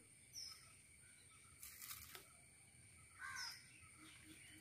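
Near silence, with a crow cawing once, faintly, a little after three seconds in.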